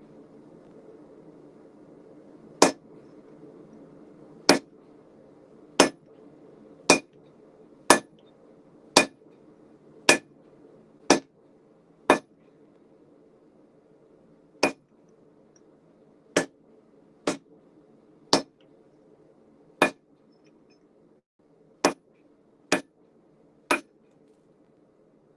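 Hand hammer striking a red-hot steel bar held with tongs on an anvil: about seventeen sharp, ringing blows, roughly one a second with a few short pauses, over a steady low background rush.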